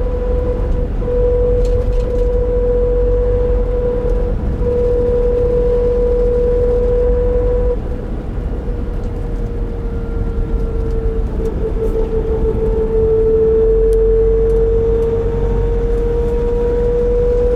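Nissan NV350 Caravan with the YD25DDTi diesel driving under steady throttle, a steady droning 'kōn' hum standing out over the engine and road rumble. The hum sags slightly in pitch in the middle and comes back up near the end. The owner wonders whether it is a differential noise.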